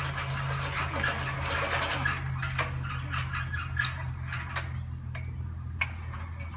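Flags being hoisted up metal flagpoles: irregular sharp clinks and ticks of halyard clips and rope against the poles, over a steady low hum.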